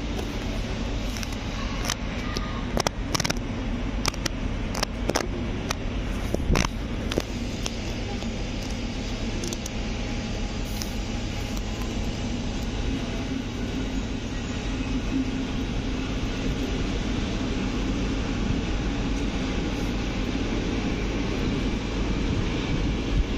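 PKP Intercity passenger coaches rolling past on a station track: a steady low rumble, with a run of sharp clacks through the first seven seconds or so.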